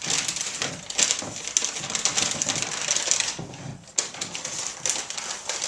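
Pleated paper rustling and crinkling as it is handled and pressed into shape, with many small crackles and clicks.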